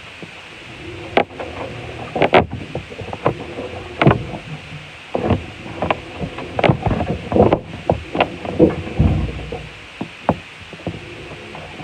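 Washing machine running with irregular knocks and clunks, several close together at times, over a steady background.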